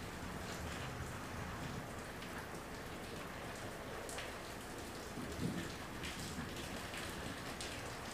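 Steady rain falling during a thunderstorm, with scattered drops ticking sharply on a nearby surface. There is a brief low thump about five seconds in.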